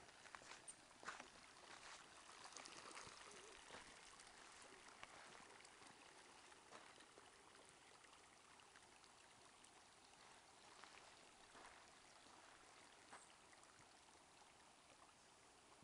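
Faint, steady rushing of a shallow runoff stream flowing over gravel and rocks in a desert wash, freshly formed by monsoon rain.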